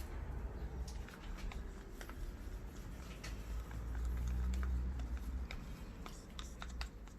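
Scattered light clicks and taps of plastic paint cups and a stirring stick being handled while acrylic pouring paint is mixed, over a low steady hum.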